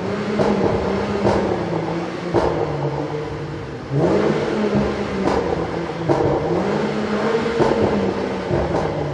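2017 Jaguar F-Pace's 3.0-litre supercharged V6, fitted with an aftermarket Touring exhaust and ECU tune, being revved several times, the pitch climbing, holding and falling back. The rises come early on and sharply at about four seconds in. Sharp pops and crackles from the exhaust come out through the revs.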